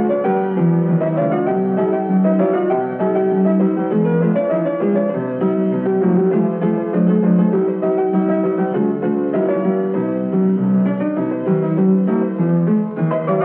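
Background music played on piano or keyboard, a steady run of quick notes.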